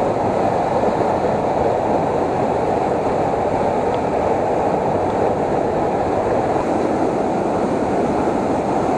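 Steady roar of a swollen, muddy river in flood rushing over rocks below a waterfall.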